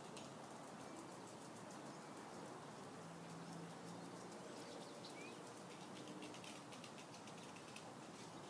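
Faint outdoor background hiss with many small, quick high-pitched ticks and one short rising chirp about five seconds in.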